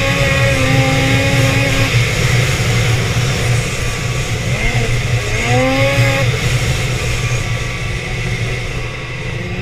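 Two-stroke snowmobile engine heard from the rider's seat, its pitch rising as it accelerates at the start and again about five seconds in, then holding steady, over a constant rushing noise.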